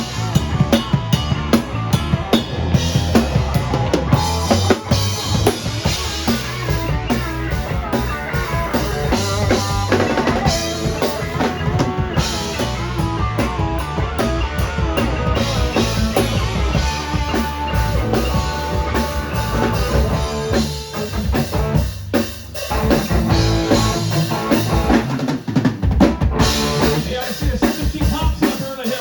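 Live rock band playing a drum-heavy passage, the drum kit loudest: kick drum, snare and rimshots. A brief drop in level comes about three quarters of the way through.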